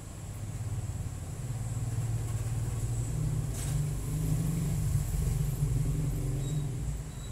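Low engine rumble of a motor vehicle going by, growing louder over the first few seconds and dropping away near the end.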